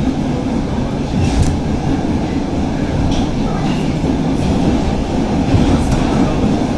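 Stockholm Metro C6 subway train running on the line, a steady low rumble with a few sharp clicks from the wheels and track.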